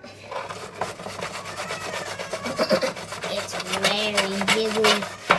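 Rapid, repeated scraping of a utensil working cake batter against a mixing bowl or cake tin, growing louder partway through and ending with one sharp scrape.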